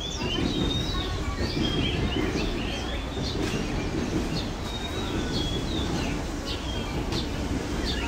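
Many caged songbirds chirping and whistling: short sliding calls, one after another, over a steady low rumble.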